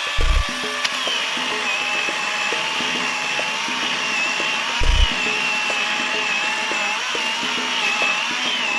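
Battery-powered electric chainsaw (Greenworks Pro 40-volt) cutting wood, its motor whine rising and sagging as the chain bites. Two short low thumps come near the start and about halfway through.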